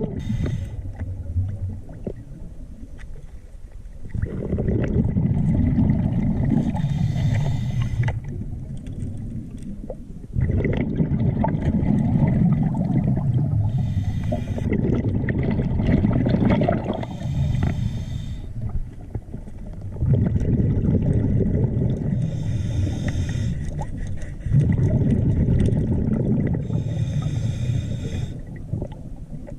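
Scuba diver breathing through a regulator underwater: short hissing breaths alternate with long, low, bubbling rumbles of exhaled air, several times over.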